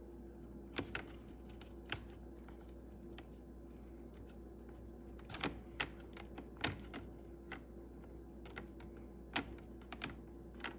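Scattered light clicks and taps of hands working wires and heat-shrink tubing over a soldered joint, over a faint steady hum.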